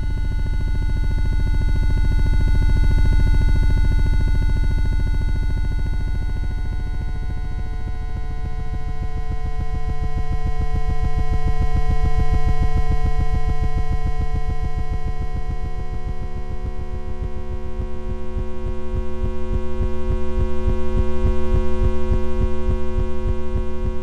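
Synthesized ambient drone of many steady layered tones pulsing rapidly and evenly, built from waveforms tuned to the mean lifetimes of the charged muon and charged pion. The volume swells and fades slowly, about three times.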